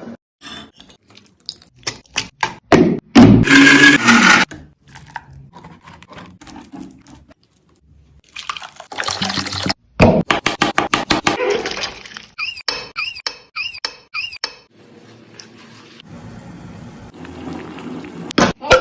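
Kitchen preparation sounds: scattered knocks and clicks of utensils, a loud stretch of liquid-like noise a few seconds in, a fast run of sharp taps in the middle, and a short series of squeaks after it.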